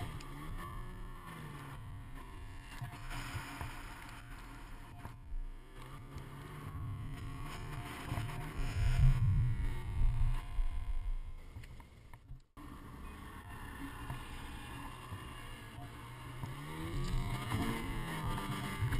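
Ski-Doo mountain snowmobile engine revving up and down as the sled works through deep powder, loudest just before the middle. The sound breaks off briefly just past the midpoint, then the engine revs up again near the end.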